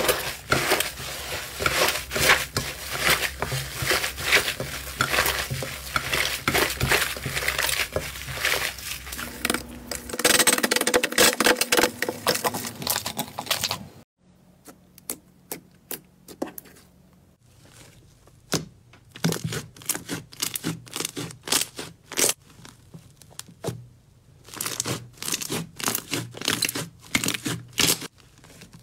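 Hands squeezing and pulling apart thick fluffy slime, giving a dense run of crackling, tearing sounds. About halfway through this stops suddenly, and sparser, quieter clicks and pops follow in clusters as slime is pressed and poked.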